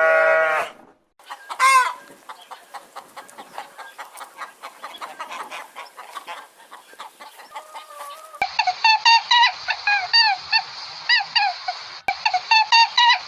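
Farm animal sounds. A short bleat, then chickens clucking with one louder call about two seconds in. From about eight seconds a flock of fowl calls rapidly in short rising-and-falling calls.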